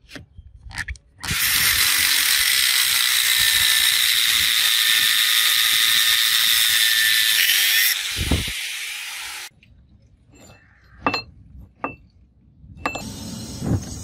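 Angle grinder cutting into a steel bearing race: a loud, steady whine for about six seconds that drops and spins down as the disc comes off. A few clicks come first, and a few sharp metal taps come after it.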